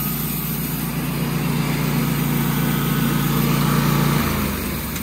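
Wood-Mizer LT15 Wide sawmill's air-cooled gas engine running steadily at high revs. About four seconds in it drops to a lower idle as the throttle is pulled back.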